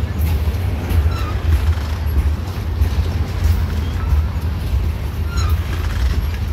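Loaded tank-car freight train rolling past at close range: a steady low rumble of wheels on rail, with irregular clicks as wheels pass over rail joints.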